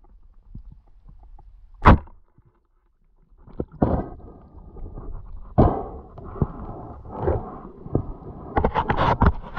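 Underwater sound of polespear spearfishing: one sharp, loud click about two seconds in, then an irregular run of clicks and knocks over a water-noise hiss, getting busier near the end.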